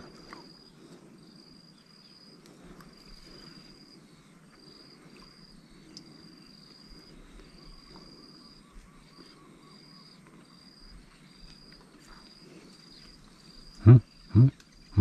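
Insects chirping in a high-pitched pulsing trill that repeats in short runs throughout. Near the end, two short loud voice sounds from a man, like grunts.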